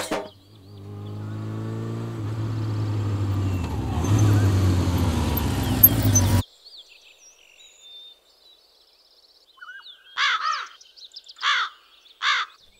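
A motorcycle engine runs with its pitch rising and falling, then cuts off abruptly about six seconds in. Near the end, a crow caws three times.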